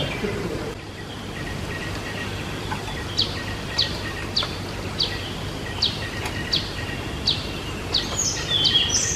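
A bird repeating a short, high, falling chirp over and over, a little under two a second, starting about three seconds in, over a steady hiss.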